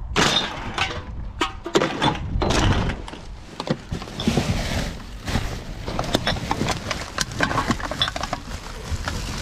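Rubbish being handled and shifted in a dumpster: irregular knocks, clatter and rustling.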